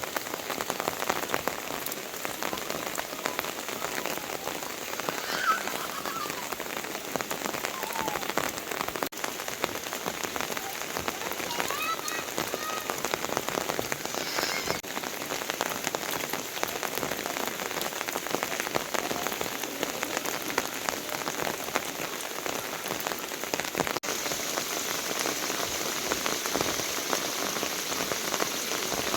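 Steady rain falling, a dense, even patter of drops that grows a little hissier near the end.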